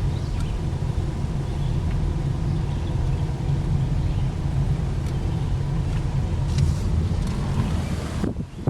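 Car driving along, its engine and road noise making a steady low rumble that drops away suddenly near the end.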